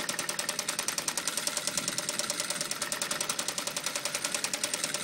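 Industrial direct-drive sewing machine, adapted for free-motion quilting, stitching steadily at a reduced speed: a fast, even rhythm of needle strokes over a steady motor hum.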